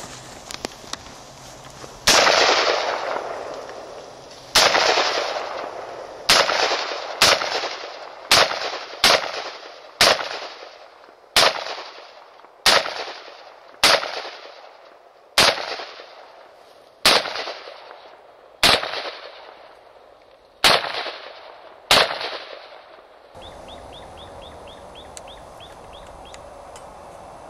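About fifteen single gunshots from a long gun fired from the shoulder, spaced roughly one to two seconds apart, each with a long echoing tail. The shooting stops near the end.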